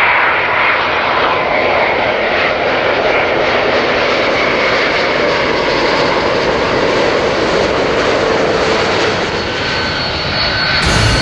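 Airbus A350's jet engines as the airliner passes low on final approach: steady jet engine noise with a rushing hiss. Near the end it cuts abruptly to another jet's engines, deeper and with a steady whine.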